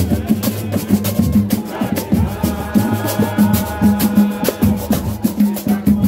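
Samba played live by a roda de samba: a fast, steady rhythm on pandeiro and drums, with a melody line coming in about two seconds in.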